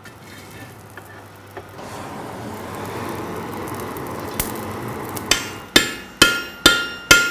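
A steady rush of noise from the coal forge fire, swelling slowly. About five seconds in, a hammer starts striking the red-hot wrought-iron bar on the anvil, about two blows a second, each blow ringing, as the end is bent over the anvil's edge.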